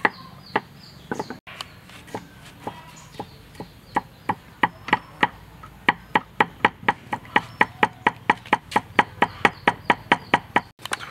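Cleaver chopping on a wooden chopping board in quick, even strokes, a few scattered hits at first, then a steady run of about three to four strokes a second from about halfway through.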